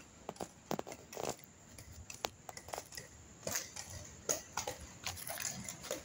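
Irregular clicks and scuffs of steps and inline-skate wheels on asphalt, a few sharp clacks among softer scrapes over a faint hiss.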